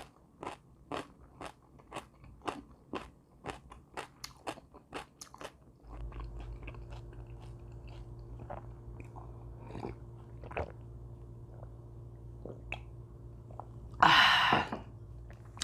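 Close-miked chewing of crunchy food, sharp crunches about two to three a second, thinning to occasional crunches after about six seconds when a steady low hum comes in. A short loud rush of noise near the end.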